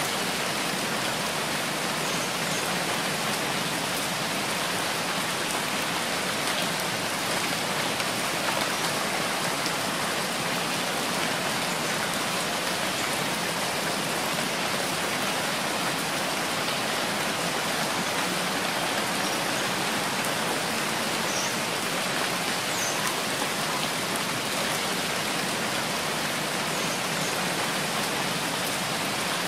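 Steady rain falling, an even hiss with no let-up, with a few single drops standing out now and then.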